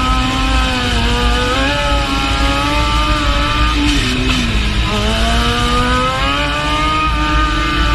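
Motorcycle engine running at high revs, its pitch falling and rising a few times with the throttle, over a steady low rumble.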